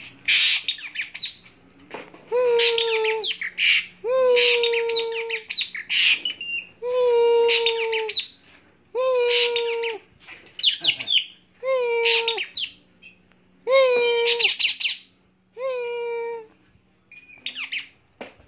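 Bird calling over and over, about eight calls roughly two seconds apart. Each call is a held low note with quick high chirps over it. This is the calling of a bird being lured in for trapping.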